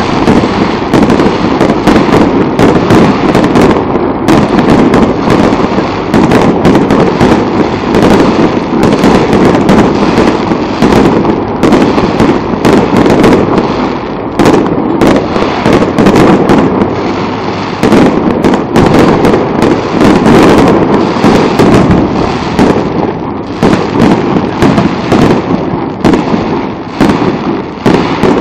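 Aerial fireworks bursting in a dense, continuous barrage: rapid overlapping bangs and crackles with no break, very loud.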